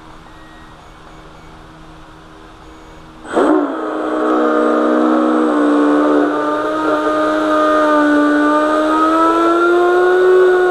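Electric RC boat motor on an 8S battery bench-running its greased flex shaft. A faint steady hum gives way suddenly, about a third of the way in, to a loud steady whine as the throttle is opened, and the pitch swells slowly up and then eases back down.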